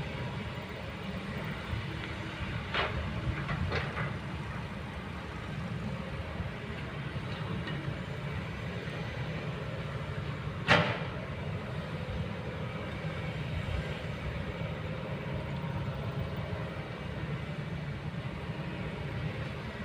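Kobelco excavator's diesel engine running steadily under work, with a few sharp knocks of metal or rock. The loudest knock comes about eleven seconds in.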